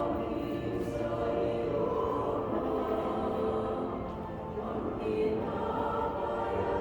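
Music of long, held chords, slowly changing, without a clear beat.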